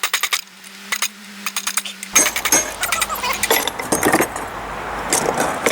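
Rapid light hammer blows on a hot railroad spike, about ten a second, in two quick flurries while the ear is cut free. From about two seconds in, scattered metal clinks over a steady rushing noise.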